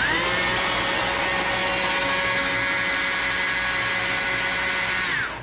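Stihl two-stroke chainsaw revved to full throttle and held there for about five seconds while cutting a feather groove into the wood. Its high whine climbs as it revs up at the start and drops away as the throttle is released near the end.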